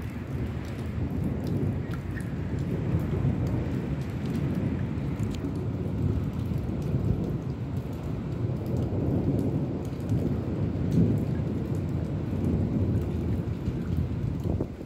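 Thunderstorm: low rolling thunder rumbling on and on, with rain falling.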